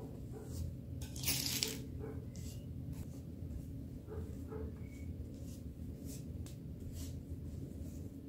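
Silicone spatula scraping and spreading soft cinnamon-butter filling over rolled dough, a string of short soft scrapes and dabs with a louder scrape about a second in, over a steady low hum.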